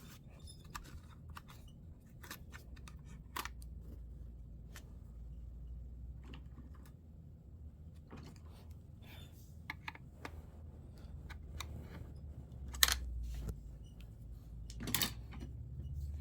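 Small clicks and taps of a laptop being handled and taken apart, with two louder knocks about 13 and 15 seconds in, over a faint low hum.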